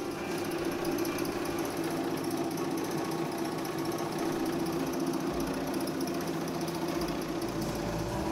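Oliver bread slicer running, its reciprocating blades making a steady, rapid mechanical rattle as loaves are sliced.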